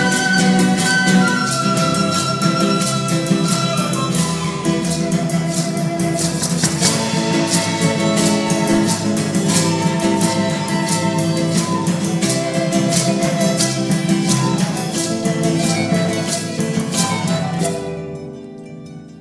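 Andean folk instrumental ensemble: an end-blown wooden flute carries the melody over fast strummed guitars and bowed strings. The music stops sharply about eighteen seconds in, leaving strings ringing faintly.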